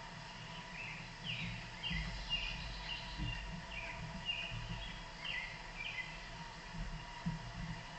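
Wild birds calling outdoors, short chirping notes that rise or fall, repeated about once or twice a second over a steady background hiss. Soft low thuds come and go in the middle while a large dog moves right past on the wooden porch.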